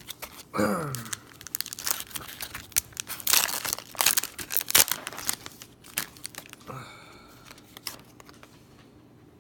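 Foil booster pack wrapper of Pokémon trading cards being torn open and crinkled, a dense crackling that runs for several seconds from about a second and a half in and then dies down. A short vocal sound comes near the start and another a little before the end.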